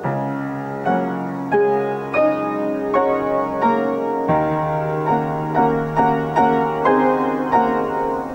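Upright piano played slowly and softly: a melody of single notes struck about every two-thirds of a second over held chords, with a low bass note entering about four seconds in and held.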